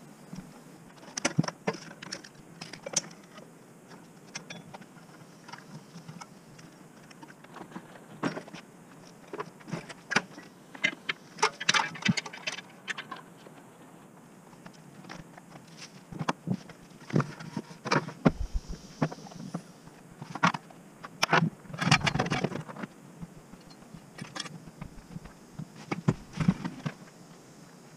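Gear being unloaded from a car's rear cargo area: scattered clanks, rattles and scrapes, including a metal-tube kayak-trailer frame being handled and pulled out. The clatter comes in short bunches, the busiest about twelve seconds in and again around twenty-two seconds.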